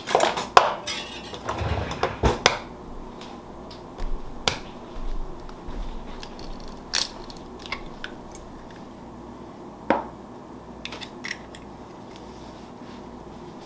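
An egg being cracked against a glass mixing bowl and opened into it: a quick cluster of knocks and clinks in the first two or three seconds, then a few single sharp taps and clinks spread through the rest.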